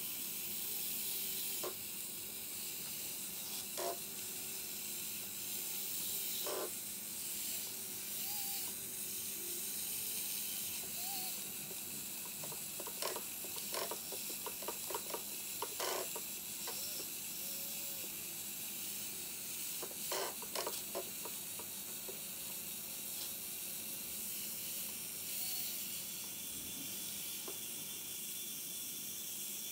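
Tiny electric gear motors of a micro-scale RC Liebherr 974 excavator model whining faintly under a steady hiss. Small pebbles click and rattle in quick runs about halfway through as the model moves through the gravel.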